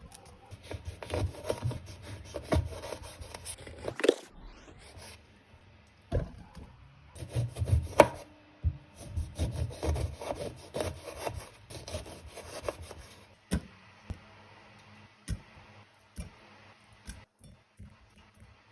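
A knife cutting through citrus fruit on a wooden cutting board, in quick irregular sawing and scraping strokes. After about 13 seconds the cutting stops and there are a few separate sharp knocks.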